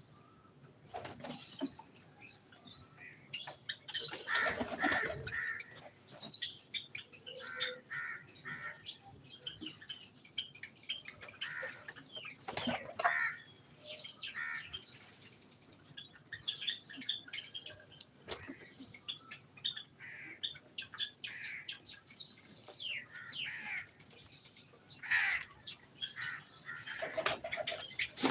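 Pet birds chirping and calling: many short, overlapping chirps and trills at irregular intervals.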